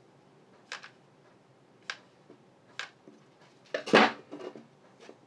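Hot glue gun being handled: three sharp clicks about a second apart, then a louder clatter about four seconds in as the gun is set down on the workbench, followed by a few lighter knocks.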